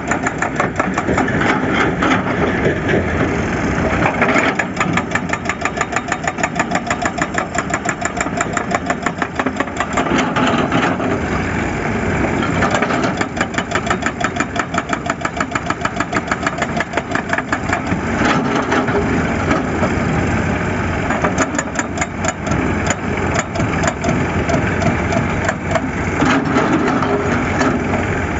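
Excavator's diesel engine running steadily, with a rapid, even pulsing.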